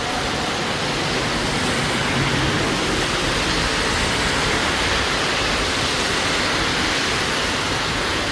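Steady, even rush of water, with no breaks or changes.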